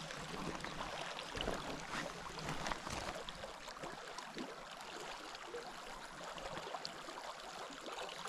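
Steady babble of a shallow river's current running past the bank.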